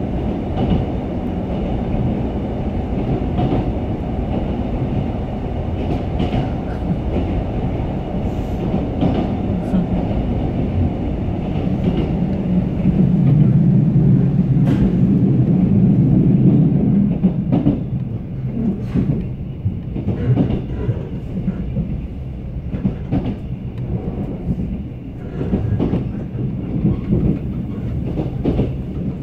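Passenger train running along the track, heard from inside the carriage: a steady low rumble that swells for a few seconds around the middle. After that come sharp clicks of the wheels over the rail.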